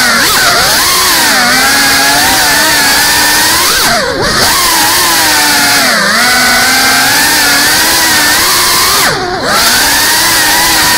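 GEPRC CineLog 35 FPV drone's motors and propellers whining, the pitch rising and falling with the throttle. Twice, about four seconds in and again near nine seconds, the throttle briefly drops off and the whine sweeps down and back up.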